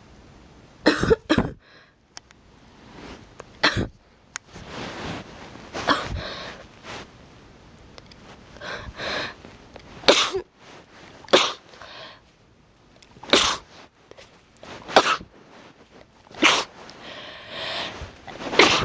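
A sneezing fit: about ten sharp sneezes, some in quick pairs and others one to four seconds apart, with breathy build-ups between some of them.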